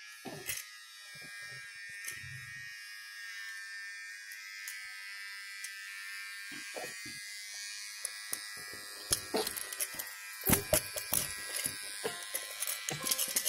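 Electric hair trimmer buzzing steadily as it shaves a baby's head, with a few short knocks and clicks in the second half.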